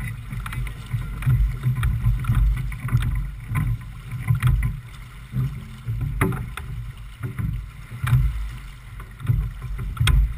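A J/24 keelboat under sail in chop: wind gusting on the camera's microphone as an uneven rumble, with water washing along the hull and scattered short knocks and clicks from the boat.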